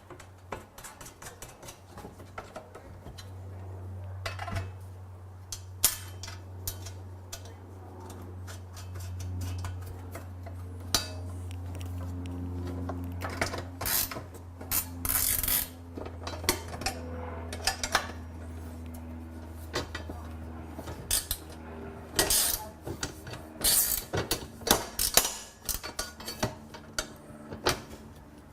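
Metal parts of a steel band saw table kit clinking and clattering as they are handled and bolted together with a hex driver: many irregular sharp knocks, busier in the second half, over a steady low hum.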